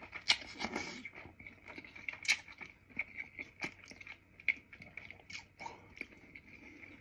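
A person eating a bowl of pho close to the microphone: quiet chewing and mouth clicks, with a few sharper clicks, the loudest just after the start and about two seconds in.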